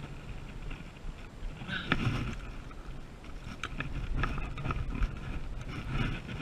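Wind on the microphone with scattered sharp knocks and rattles against a plastic kayak hull as a landed largemouth bass is handled beside it.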